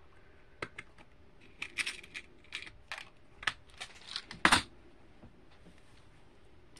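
Small metal jewelry findings clicking and rattling as they are rummaged through in search of a lobster clasp: about a dozen light, irregular clicks, the loudest about four and a half seconds in.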